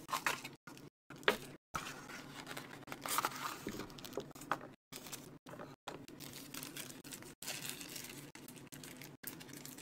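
Packaging being opened by hand: plastic and cardboard rustling and crinkling, with tearing, broken by several brief dead-silent gaps.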